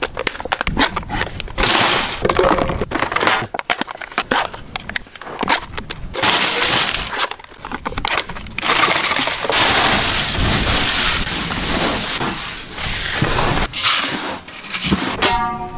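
Pringles potato crisps crunching and cracking as they are tipped out of their cans and crushed into crumbs by hand: a long, dense run of crackling with many sharp clicks and snaps.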